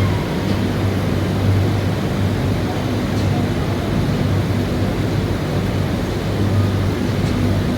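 Steady low machine hum with a constant background rush.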